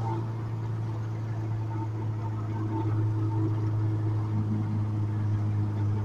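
Honda Civic EK hatchback's swapped-in K24A2 four-cylinder engine running at a steady cruise, heard from inside the cabin as a low, even drone that gets a little louder about three seconds in.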